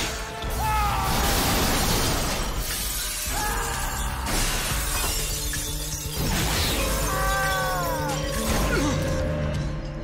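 Glass shattering and crashing several times, layered over a film's action music score.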